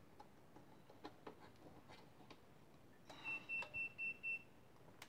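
A digital multimeter beeps five times in quick succession, short high beeps at one pitch about a quarter second apart, starting about three seconds in. Before the beeps there are only faint scattered clicks.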